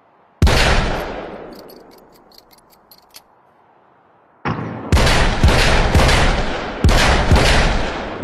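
.44 Magnum Smith & Wesson Model 629 Stealth Hunter revolver firing: one loud shot about half a second in that rings out slowly, a string of faint clicks, then a quick series of shots about half a second apart from about halfway through.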